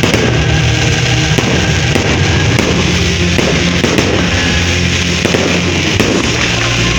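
Aerial fireworks bursting: repeated bangs and crackling as shells go off overhead, with music playing underneath.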